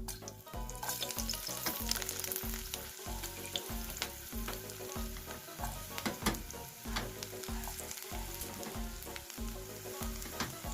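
Sheep tail fat sizzling as it fries in a pan, with sharp clicks and scrapes of stirring, over background music with a steady low beat.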